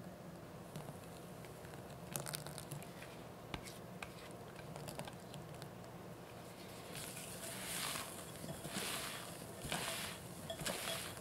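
A spatula mixing cocoa sponge batter, first with light clicks against a small ceramic bowl, then folding the batter in a glass bowl with soft wet swishes about once a second in the second half.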